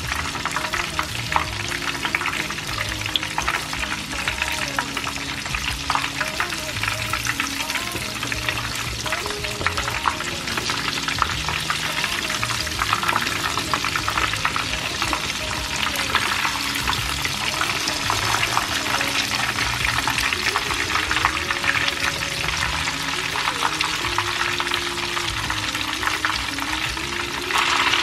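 Panko-crumbed beef steaks shallow-frying in hot oil: a steady, dense crackling sizzle that grows louder near the end.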